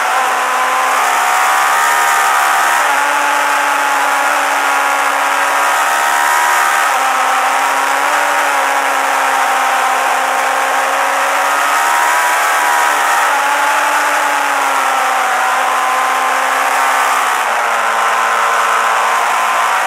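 Suzuki GSX-R1000 inline-four engine running hard at high revs, heard from onboard. Its pitch rises and falls a little several times and drops slightly near the end.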